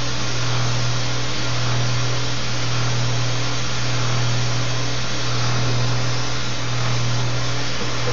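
Gas torch flame burning with a steady hiss and a low hum, heating a crucible to melt fine silver for casting.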